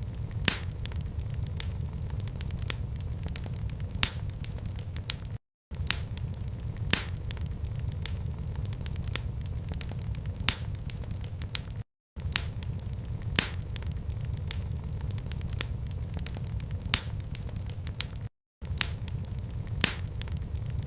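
Fireplace fire crackling: a steady low rumble of flames with sharp, irregular pops and snaps scattered over it. The sound drops out to silence for a split second three times, about every six and a half seconds.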